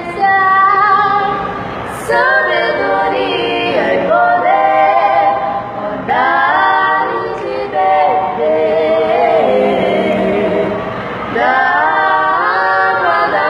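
Women's voices singing a cappella in close harmony, several parts at once, with melismatic runs. Phrases enter about two seconds in, again around six seconds, and near the end.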